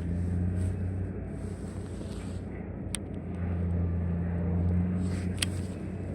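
A steady low engine-like hum that swells louder through the middle, with two sharp clicks, one about halfway through and one near the end.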